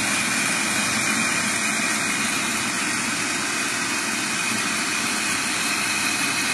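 Electric food processor running continuously as it blends basil pesto, a steady motor whir with a high whine on top, while olive oil is drizzled in through the feed tube.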